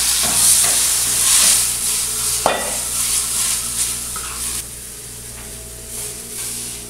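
Sauce frying in a frying pan, sizzling steadily while a spatula stirs potatoes through it, with one sharper scrape of the spatula on the pan about two and a half seconds in. A little past halfway the sizzling drops to a much quieter level.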